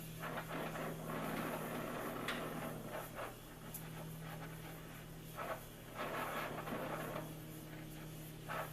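Irregular hand strokes of an abrasive rubbing on the steel of a knife blade cut from a circular saw blade. They come in clusters, over a steady low hum.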